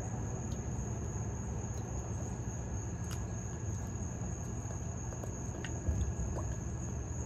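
Steady high-pitched insect chorus over a low background hum, with a soft thump about six seconds in.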